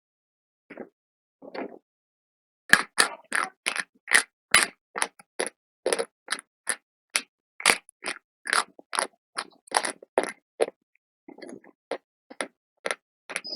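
Close, crisp crunching of brittle slate being bitten and chewed: a few soft crunches, then from about three seconds in a fast run of sharp crunches, two to three a second, thinning out near the end.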